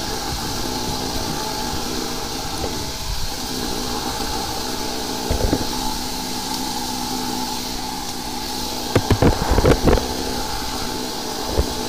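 High-pressure sewer jetter's engine and pump running steadily while the jetting hose works in the drain line. A knock about five seconds in, a quick run of sharp knocks around nine to ten seconds in, and one more near the end.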